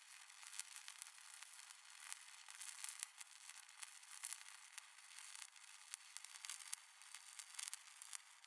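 Faint crackling sound effect: a steady, thin hiss scattered with irregular sharp clicks and pops, with no low end.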